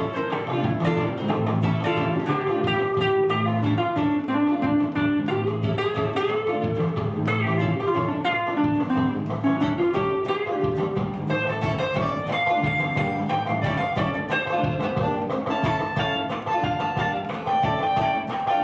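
Instrumental guitar music: a guitar plays a running melodic line over a low bass accompaniment.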